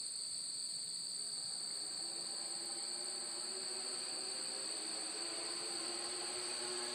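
Steady high-pitched insect chirring, as of crickets in the grass, with a faint low hum underneath that grows a little louder toward the end.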